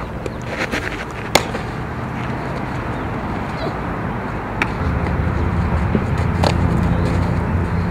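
Outdoor ambience with a few sharp smacks of a softball in fielding practice, the loudest about a second and a half in, and a low steady rumble in the second half.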